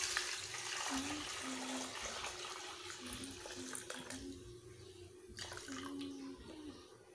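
Coconut milk being poured from a bowl into a pot of beans: a steady liquid pouring sound that tapers off about four seconds in.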